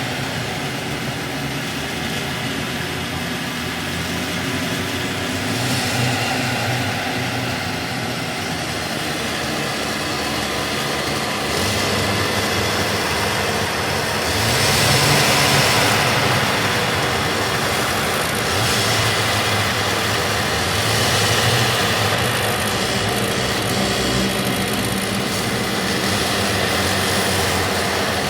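Motor vehicle engine running steadily, swelling louder and easing off several times.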